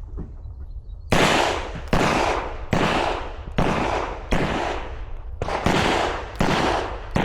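Pistol shots fired one after another at a steady pace, about one every 0.8 s, starting about a second in, each shot ringing out with a short echo.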